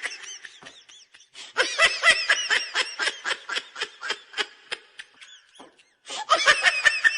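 Laughter sound effect: a high-pitched laugh in quick pulses, about five a second, coming in three bouts with short breaks between them.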